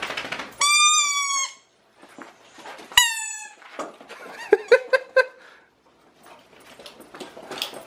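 Dogs at play over a toy: a long, high-pitched squeal about half a second in, a shorter squeal falling in pitch about two seconds later, then a quick run of short squeaks.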